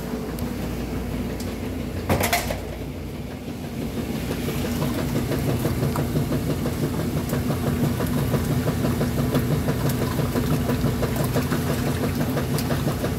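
Top-loading Kenmore 90 Series washing machine running, a steady hum with a fast, even churning rhythm that grows louder about four seconds in. A short, loud bang comes about two seconds in.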